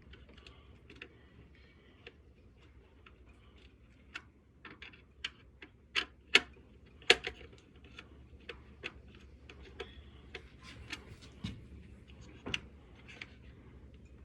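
Irregular light clicks and taps, a few sharper ones about six to seven seconds in and again near the end, over a faint low hum.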